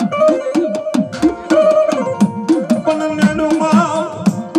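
Gujarati devotional folk music: a folk drum beaten in a quick rhythm, its strokes sliding down in pitch, under held melodic notes, with a man's singing voice amplified through a microphone.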